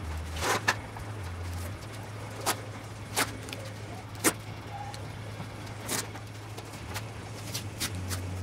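Masking tape being pulled off the roll and torn while it is laid along a windshield strip, in several short sharp rips, over a steady low hum.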